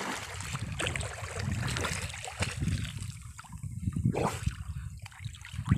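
Shallow water splashing and sloshing around a man wading and reaching down into it, with a few sharper splashes.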